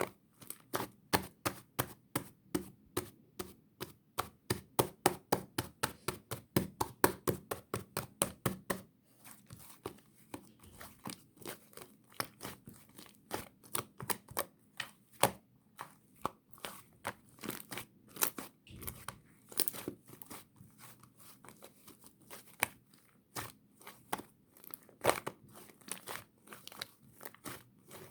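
Sticky, fluffy whipped-cream slime being squished and pressed by hand, making quick sticky clicks and pops. They come regularly, about three to four a second, for the first nine seconds, then turn slower and irregular.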